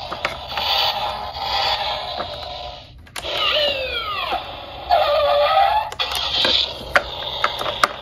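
A battery-powered toy police car's sound module playing electronic effects through its small speaker: patterned siren-style tones, then a run of several falling tones a few seconds in and a warbling tone after. Sharp plastic clicks from its buttons and handling come near the end.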